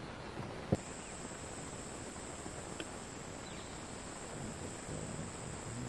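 A sharp click about a second in, then a steady, high-pitched insect chorus that starts abruptly and holds one even pitch over quiet forest background.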